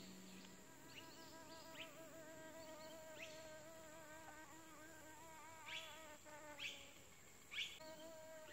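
Leafcutter bee buzzing in flight, a faint hum whose pitch wavers as it hovers about. Several short, high, rising chirps cut in over it, the loudest three in the second half.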